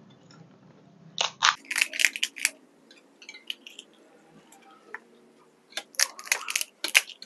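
Crisp, hollow pani puri shells cracking and crunching as they are picked up with chopsticks and eaten: irregular sharp cracks in two flurries, about a second in and again near the end, with scattered smaller ticks between.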